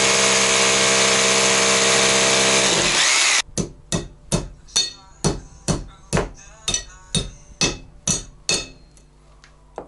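A power tool runs steadily for about three seconds, then winds down and stops. A quick run of hammer blows follows, about two to three a second, for roughly five seconds.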